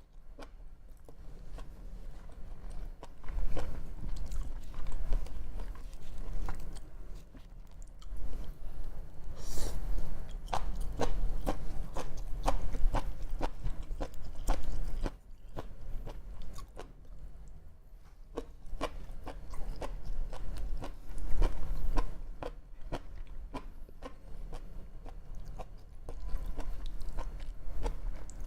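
Close-miked biting and chewing of sushi: a run of short, sharp mouth clicks that comes and goes in louder spells.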